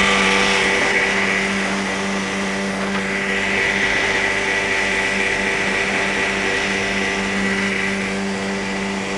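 Speedboat's outboard motor running steadily at speed, an even engine drone over the rushing hiss of water and wind.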